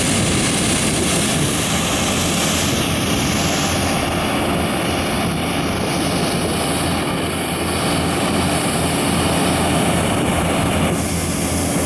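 Loud, steady engine noise with a broad rushing hiss over a low hum, holding level throughout.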